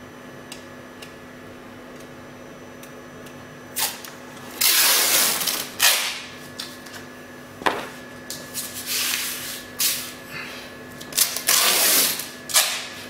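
Adhesive tape being pulled off its roll in several long, noisy pulls, starting about four seconds in and again near the end, with a short sharp tap in between.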